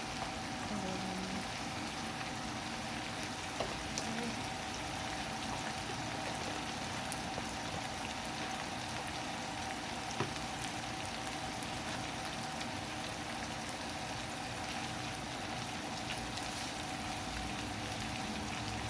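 Pork menudo with carrots simmering and sizzling in a pot on the stove: a steady bubbling hiss, with a few faint clicks.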